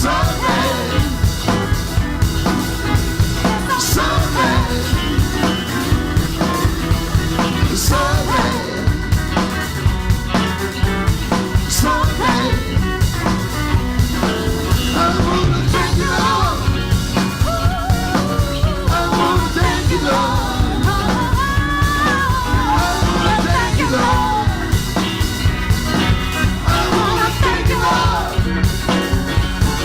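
Live rock band with drum kit playing an up-tempo gospel-rock song, a steady beat under a wavering melodic lead line.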